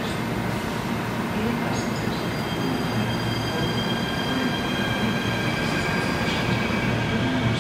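Third-generation Athens Metro electric train pulling out of an underground station and gathering speed: a steady rumble, with several high whining tones setting in about two seconds in.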